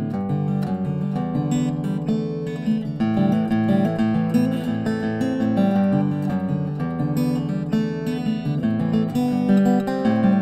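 Archtop acoustic guitar playing a piece of music: a continuous flow of picked notes and chords.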